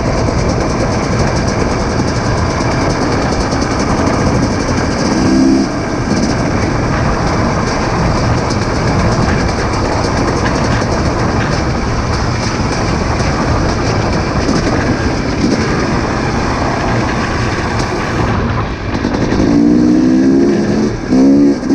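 A vehicle running steadily, with a continuous rumble and rattle. A brief pitched tone sounds about five seconds in, and more pitched tones come near the end.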